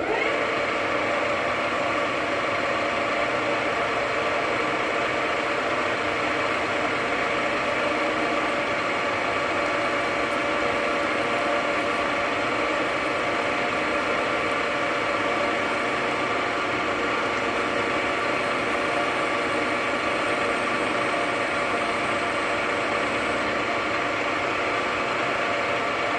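JFMT metal lathe running at a steady speed. It comes up to speed right at the start and begins to run down at the very end.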